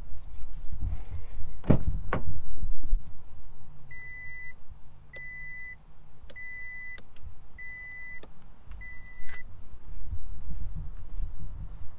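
Two sharp knocks, then a 2020 Toyota Tacoma's in-cab warning chime beeping five times, evenly spaced about a second apart, with the driver's door open.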